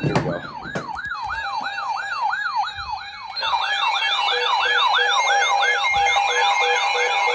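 A few sharp clicks, then an electronic siren sounding a fast yelp, its pitch sweeping up and down about three to four times a second. About three and a half seconds in, a second, higher siren tone and an evenly pulsing lower beep join in.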